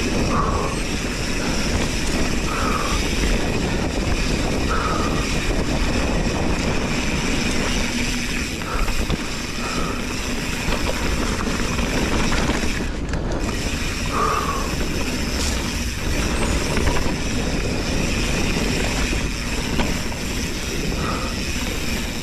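Continuous riding noise of a Specialized Stumpjumper mountain bike on a dirt trail: tyres rolling and the bike's parts rattling and clicking over the ground. A few brief squeaks come and go.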